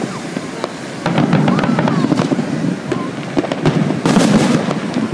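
Fireworks going off: a dense run of pops and crackles with a low rumble, and a hissing burst about four seconds in.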